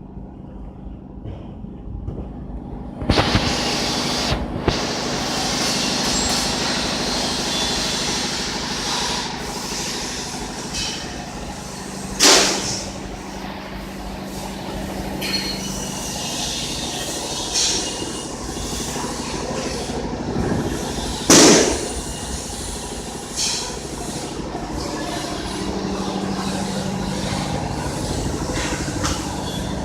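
750 W fiber laser cutting machine cutting 2 mm stainless steel: a low machine hum, then about three seconds in a loud steady hiss of cutting starts and carries on, broken by two brief sharp bursts about ten seconds apart.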